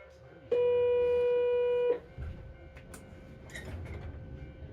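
Ikoma cable car departure signal: one steady electronic tone held for about a second and a half, starting and stopping abruptly. A low rumble follows as the car gets under way.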